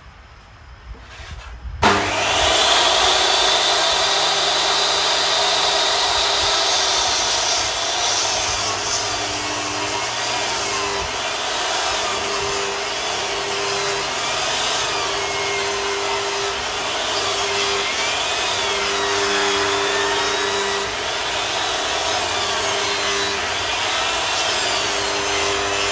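Table saw cutting wood: after a quiet start, the saw comes in abruptly about two seconds in and then runs steadily, its blade whining high as a board is ripped through it.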